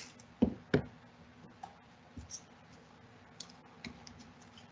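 Scissors cutting thin cardboard: two sharp snips in the first second, then faint clicks and taps as the cut pieces are handled.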